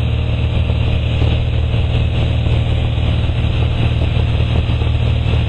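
Steady drone of a light aircraft's engine and propeller inside the cabin during a slow climb, a deep hum with airflow noise over it.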